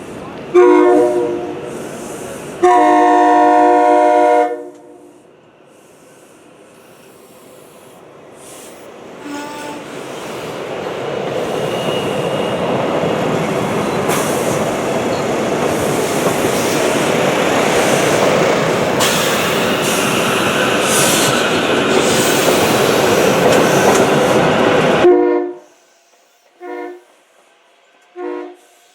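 Train horn sounding two long blasts, then a train passing close by, its wheel and rail noise building into a steady rush before it cuts off suddenly. Three short horn toots follow near the end.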